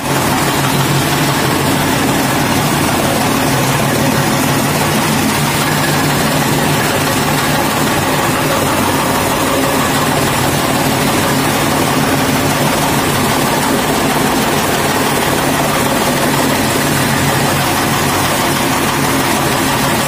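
Electric-motor-driven chaff cutter running steadily as green fodder stalks are fed in and chopped: a constant rushing noise over a steady low hum.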